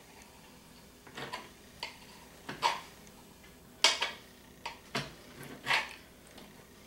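Kitchen knife clicking and scraping against the cutting board as it trims the edge of rolled pie dough: a string of short, irregular clicks.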